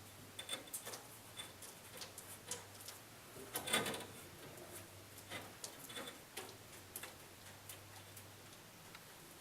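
Faint scattered clicks and light taps from a thin cast concrete fireplace header piece being handled and set against the wall, with one louder knock nearly four seconds in.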